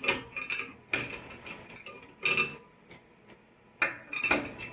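Light metallic clinks and taps of small steel parts and a screwdriver working inside a GM Z-bar bellcrank while its shim is seated, coming in about five short clusters, some with a brief ring.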